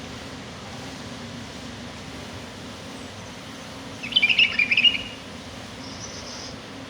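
A small songbird gives a short burst of rapid, high chirps about four seconds in, over a steady outdoor background hiss; a fainter high note follows about a second later.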